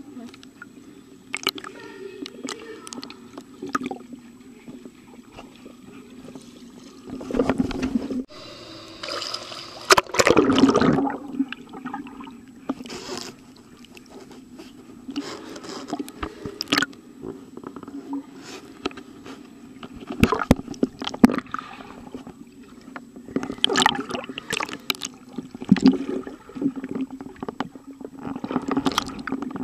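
Muffled underwater sound of a swimming pool picked up by a submerged camera: a steady low hum under frequent clicks and bubbling as swimmers move close by. A few louder rushes of water come through, the longest about ten seconds in.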